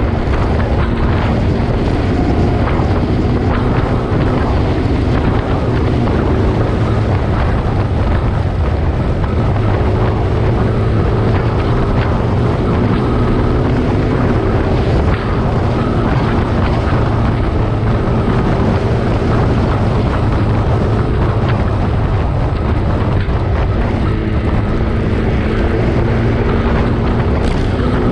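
A motor vehicle's engine running steadily while driving along, with heavy wind noise buffeting the microphone.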